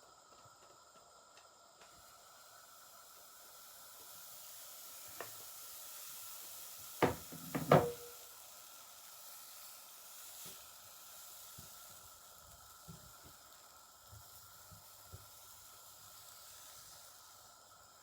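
Pancake frying in a pan: a soft, steady sizzle, with a quick cluster of sharp knocks about seven seconds in, the loudest sounds, and a few light clicks after.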